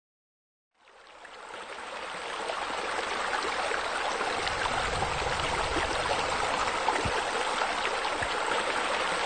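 Steady splashing, running water, fading in about a second in and then holding even, like fountain jets spilling into a pool.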